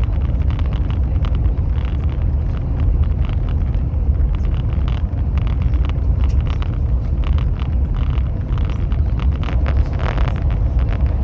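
Steady low rumble of a high-speed train running at speed, heard from inside the carriage, with light clicks and rattles over the top.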